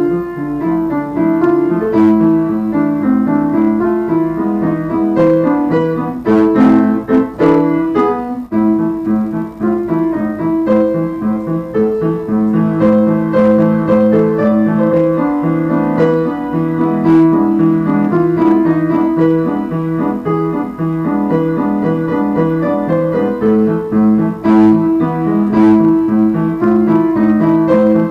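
Piano playing a Christmas carol: chords with a melody over a repeating bass line, with a few sharp clicks partway through.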